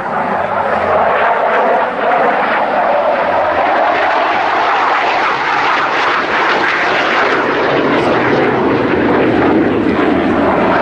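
The single Rolls-Royce Spey turbofan of an AMX light attack jet, heard loud and steady as the jet flies a display pass. The sound drops lower in pitch in the second half.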